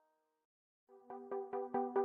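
Electronic background music: a held synth chord fades out, then after a brief gap a pulsing synth chord starts about a second in, repeating about four to five times a second and growing louder.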